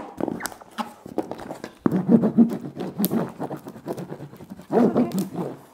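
Parcel being taped up: packing tape and plastic wrapping handled, a dense run of rapid crackling from about two seconds in, then a shorter burst near the end.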